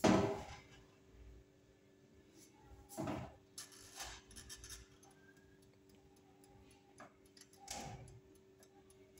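Control knobs on a gas cooker being turned and clicked, with a knock at the start, another about three seconds in, a run of quick ticks around four seconds in and a further knock near the end, over a faint steady hum.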